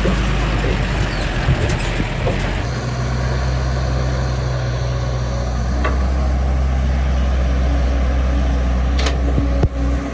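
Heavy diesel engine of construction machinery running steadily, its note settling into an even low hum about two and a half seconds in, with a short sharp click near the end.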